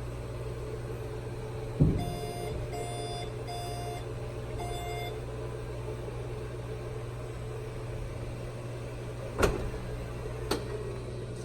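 Tesla Model S cabin: a steady hum, a thump just under two seconds in, then four evenly spaced electronic beeps, and later two sharp clicks about a second apart.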